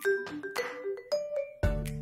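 Background music: a melody of short pitched notes over a regular percussion beat, with a deep bass note coming in about one and a half seconds in.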